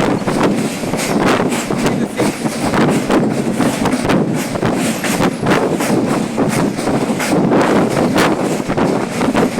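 Passenger train running along the track: a steady rumble of wheels on rails, broken by frequent irregular clanks and rattles.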